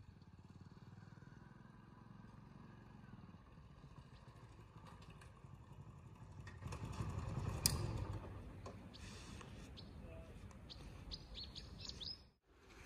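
Small motorcycle engine running as the bike approaches and pulls up, loudest about seven to eight seconds in. Birds chirp in the second half.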